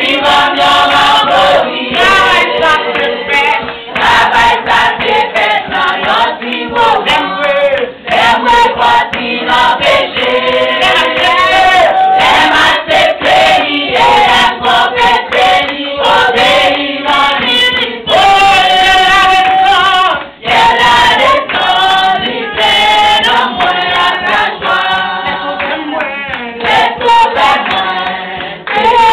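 Group of women singing a worship song together, loud and unaccompanied, with sharp hand claps throughout.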